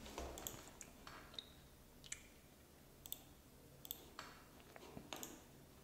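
Faint, irregular clicks and taps, about a dozen scattered through, over near silence.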